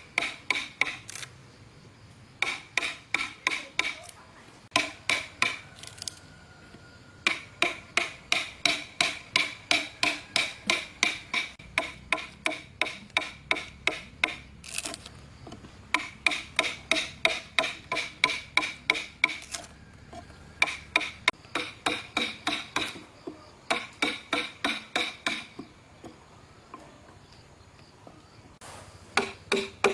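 Quick repeated strikes of a hand tool on wood, about three a second, in runs of several seconds with short pauses, each stroke ringing briefly at the same pitch.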